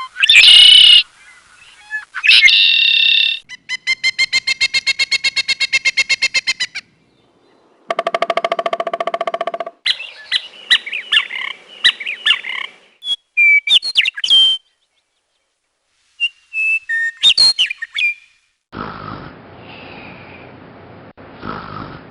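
Calls of several different birds, one after another with short gaps: a loud call, a fast even trill, a buzzy rattle, then chirps and whistles. Near the end a steady raspy, breathy sound starts.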